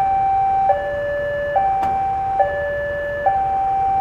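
Railway level crossing warning alarm sounding an alternating high-low two-tone, each tone held just under a second, which warns that a train is approaching. A single sharp click about two seconds in.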